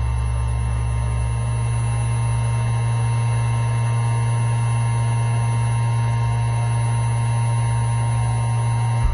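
Parallel kinematic machining robot's motors running with a steady low electric hum, with fainter steady tones above it. There is a brief jump in level just before the end.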